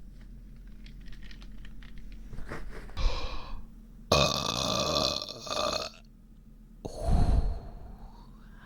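A person burping three times: a short burp about three seconds in, a long drawn-out burp of nearly two seconds, and a shorter one near the end. The burps come from a bloated, aching stomach.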